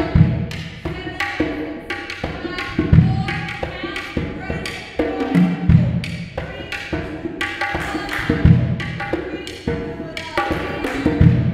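Djembe played with bare hands: a quick, steady run of sharp slaps and tones, with a deep bass stroke every two to three seconds.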